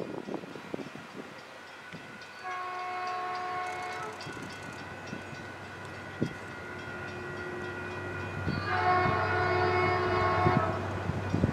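Locomotive multi-chime air horn sounding two long blasts, one about two and a half seconds in and a longer one near the end. A low steady engine rumble builds beneath it in the second half.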